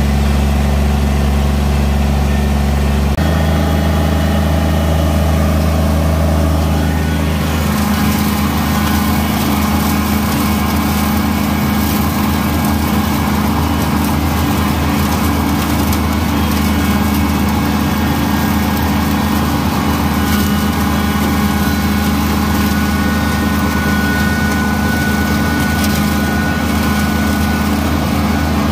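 Kubota BX2380 compact tractor's three-cylinder diesel engine running steadily. Its pitch shifts slightly about three seconds in, and a broad rushing noise rises alongside it a few seconds later.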